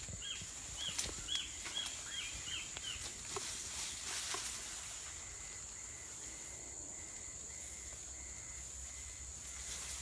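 Outdoor ambience: a steady high-pitched insect drone, with a quick run of about eight short, high, falling chirps in the first three seconds and a few soft rustles in the grass. Faint evenly spaced pips, about two a second, follow in the second half.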